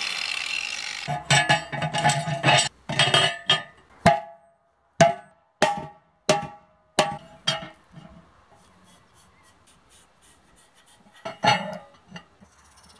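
An angle grinder cutting a rusty steel wheel stops about a second in. A series of ringing metal knocks follows: a quick cluster, then single strikes about two-thirds of a second apart. Another short burst of knocks comes near the end.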